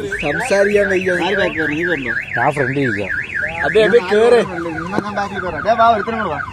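Electronic siren or alarm warbling rapidly up and down, about four cycles a second, stopping after about three and a half seconds.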